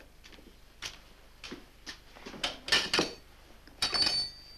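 Crockery and cutlery clattering at a breakfast table: a string of clicks and clinks, loudest about three seconds in, then a clink of china near the end that leaves a brief high ring.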